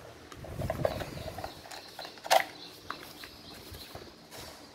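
Parts of a disassembled cordless impact driver being handled: plastic housing and battery pack rustling and clicking, with one sharp clack a little over two seconds in.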